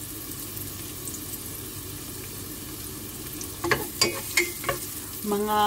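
Ginger, garlic and onion sizzling steadily in a little oil in a pot. A little past halfway, a wooden spoon stirs and knocks against the pot several times; a brief held voice comes in at the very end.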